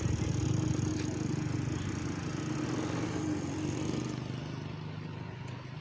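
Wind buffeting the microphone in a low, gusty rumble that eases a little after about four seconds.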